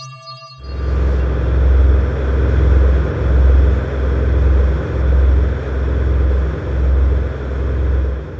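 Horror sound-effect rumble: a deep, loud rumbling drone with a hissing layer over it. It starts about half a second in, and its low throb swells and fades about once a second.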